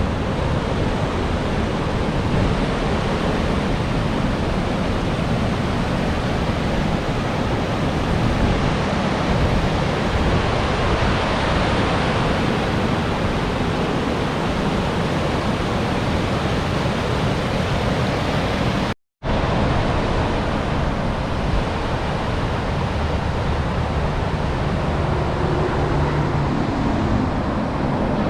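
Steady road and wind noise from a vehicle driving, with an engine hum coming through near the end.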